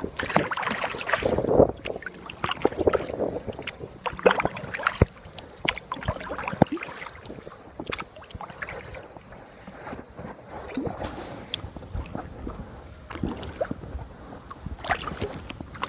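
Kayak paddle strokes dipping and splashing in the water, with irregular sharp knocks and clicks scattered throughout.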